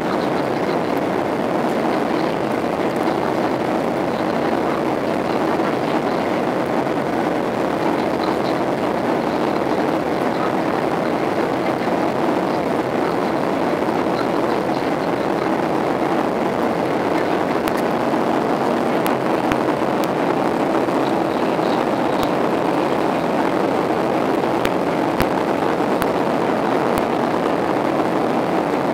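Steady cabin noise inside a Boeing 737-800 in flight: an even roar of engines and airflow with a low hum, and a few faint clicks in the second half.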